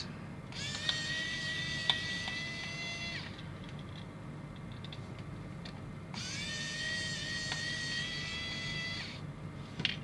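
Cordless pen-style electric precision screwdriver running twice, about three seconds each time, backing out the tiny screws of a diecast model's base: a high motor whine that rises briefly as it spins up, then holds steady.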